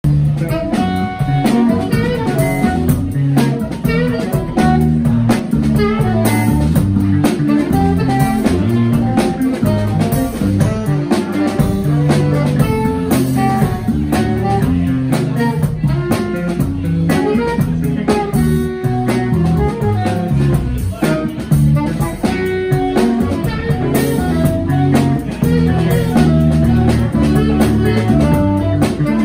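Live jazz played by a trio of saxophone, electric bass guitar and drum kit, the saxophone carrying the melody over bass and drums.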